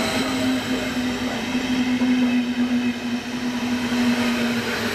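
Deutsche Bahn Intercity 2 Stadler KISS double-deck electric multiple unit running past, a continuous rolling rumble with a steady humming tone over it.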